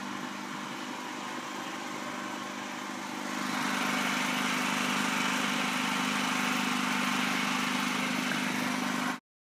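An engine running steadily with an even hum, a louder hiss joining about three seconds in; the sound cuts off abruptly near the end.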